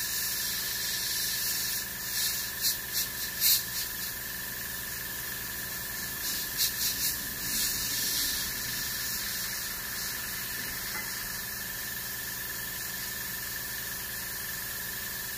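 Harder & Steenbeck gravity-feed airbrush spraying paint: a steady hiss of air, with a few short, louder bursts of spray about two to four seconds in and again around seven seconds in.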